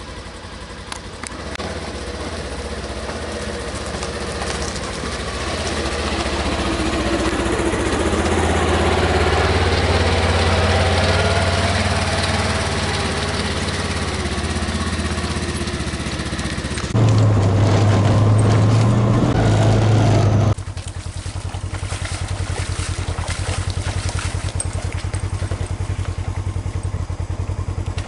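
An engine running as a vehicle travels. It grows louder through the middle, turns abruptly louder for about three and a half seconds, then drops back to a steady, pulsing run.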